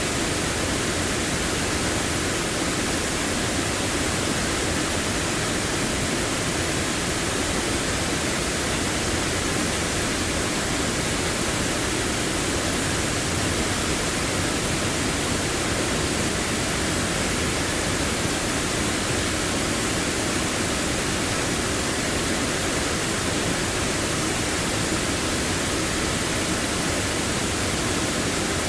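Large waterfall on the Big Sioux River at Sioux Falls, a steady, unbroken roar of rushing water.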